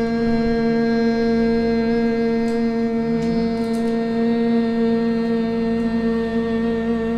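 A sustained hummed vocal drone held on one steady pitch, rich in overtones, sent through the nose in an overtone throat-singing exercise.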